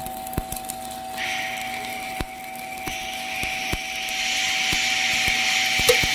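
Electric arc welding: a hissing, crackling arc that comes in about a second in and grows louder, over a faint steady hum.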